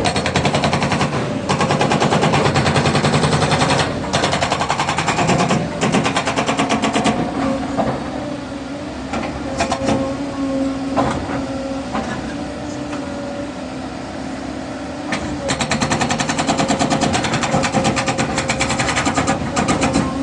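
Hydraulic breaker on a Caterpillar 307 excavator hammering in rapid bursts of blows: three bursts in the first seven seconds, then a long burst near the end. Between the bursts the machine's engine and hydraulics run steadily.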